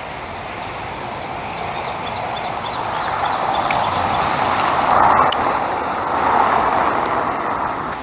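Road traffic passing, a steady rush that swells about halfway through and again shortly after. Faint high chirps sound in the first half.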